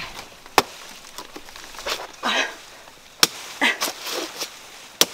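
Machete chopping into a banana plant's soft, fibrous trunk: three sharp strikes, about half a second in, just after three seconds, and at the very end, with softer rustling between them.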